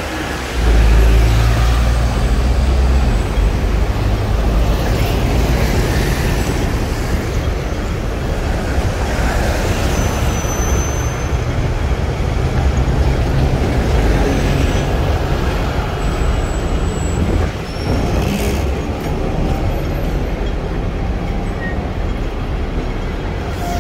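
Hong Kong double-decker electric tram running on its street rails, a steady low rumble mixed with city traffic.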